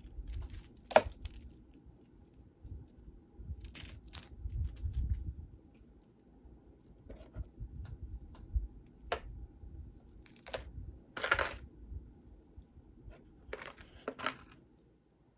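Metal jewelry clinking and jingling as pieces are handled and set down, in a string of separate clinks and short jangles with soft bumps in between.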